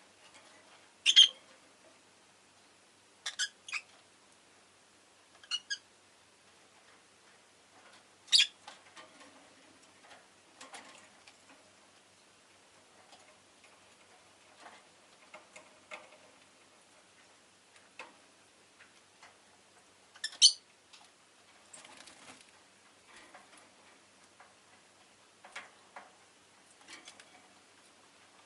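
Peach-faced lovebird giving short, sharp chirps a few seconds apart, singly or in quick pairs, the loudest about twenty seconds in. Faint clicks and rustles fill the gaps.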